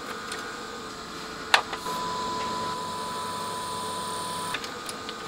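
A sharp click, then a steady 1 kHz sine test tone that sounds for about two and a half seconds and cuts off suddenly: the Technics SU-X502 amplifier passing the signal generator's tone through its video-disc (VDP) input, showing that input works.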